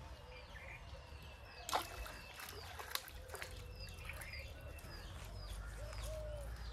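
A hooked fish splashing and thrashing at the surface of a pond as it is pulled in on a bamboo fishing pole, with small birds chirping repeatedly. A sharp crack stands out nearly two seconds in.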